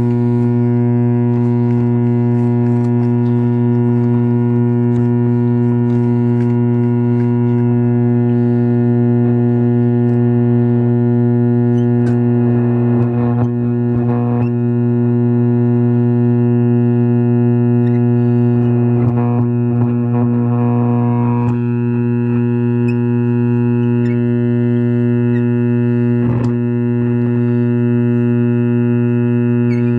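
Vintage Lafayette tube radio's speaker putting out a loud, steady mains hum: the ripple hum of a failed power-supply filter capacitor. Brief bursts of crackle come and go a few times over it.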